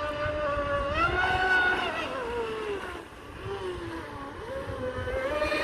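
Radio-controlled speedboat's Lehner 3040-10 brushless electric motor, on a 10S battery, whining as the boat runs flat out across the water. The pitch rises about a second in, slides down to a dip near the middle and climbs again toward the end as the throttle changes.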